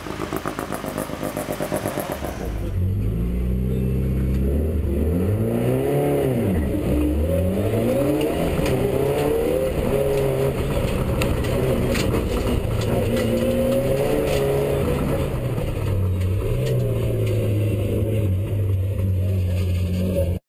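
Mitsubishi Lancer Evo IX rally car's turbocharged four-cylinder engine heard from inside the car, its pitch rising and falling as the driver accelerates, lifts and shifts, and steadier toward the end. It opens with a brief fast, even clatter.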